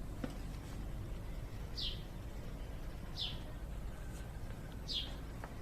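A small bird calling in a garden: a single short, high, falling note, repeated three times about a second and a half apart, over a low steady rumble.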